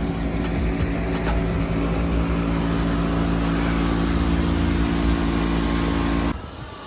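Vehicle engine running steadily with low rumble and road noise, cutting off abruptly near the end.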